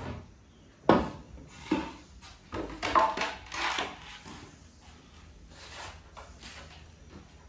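Knocks and clatter of wooden boards and tools being handled: a sharp knock about a second in, another just under two seconds in, a run of clattering around three to four seconds, then quieter shuffling.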